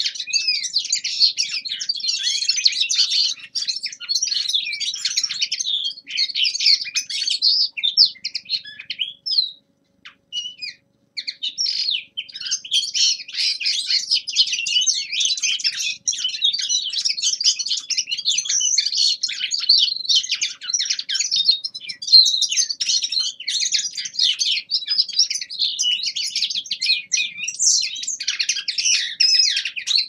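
Common linnet song: a fast, continuous twittering warble. It breaks off for a moment about ten seconds in, then resumes.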